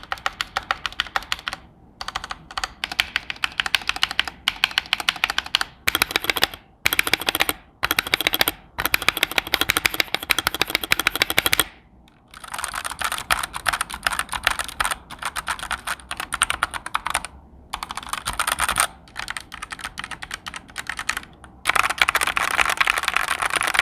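Fast typing on a Dark Alien K68 65% hot-swap mechanical keyboard fitted with red linear switches: rapid streams of key clicks broken by short pauses.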